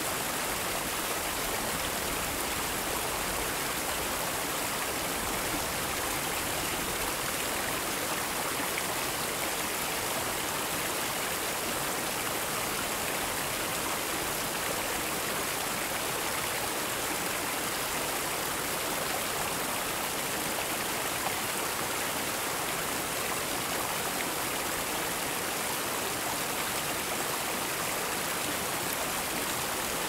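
Bronze duck water fountain: falling water splashing with a steady, even rush.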